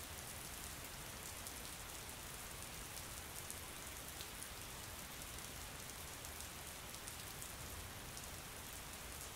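Steady, soft rain: an even hiss with faint scattered drop ticks.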